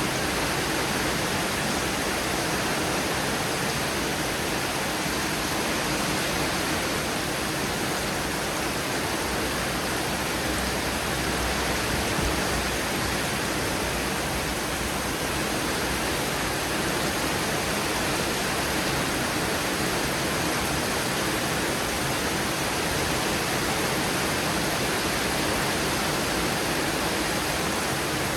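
Heavy thunderstorm rain pouring down, a steady, even hiss that does not change.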